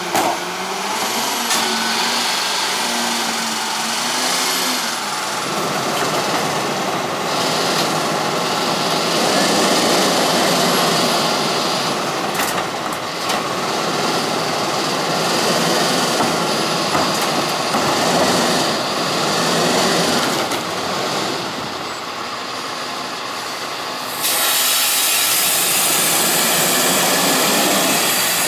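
Sterling Acterra garbage truck with a Pak Mor rear-loader body at work: its diesel engine runs under hydraulic load as the cart tipper lifts and dumps a recycling cart and the packer cycles. A wavering whine in the first few seconds gives way to steady machine noise, which gets louder and brighter about 24 seconds in as the truck pulls away.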